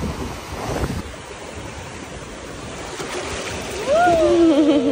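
Shallow ocean surf washing in at the shoreline. About four seconds in, a person's drawn-out, wavering voice rises over it and is the loudest sound.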